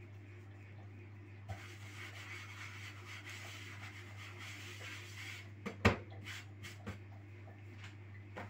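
A hand rubbing flour across the surface of a round pizza stone, a dry brushing noise for a few seconds, then a sharp knock about six seconds in with a few lighter taps after it. A steady low hum lies underneath.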